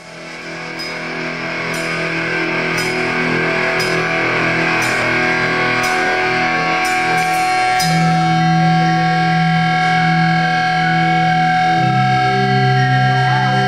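Live metal band playing the slow intro of a song: sustained chords fading in, stepping down to lower notes about eight and again about twelve seconds in, with faint ticks about once a second in the first half.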